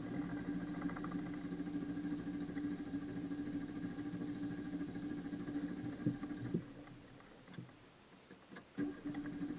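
Renault car engine being cranked by its starter without catching, a steady churning that runs for about six and a half seconds, stops, and starts again near the end: a hard start.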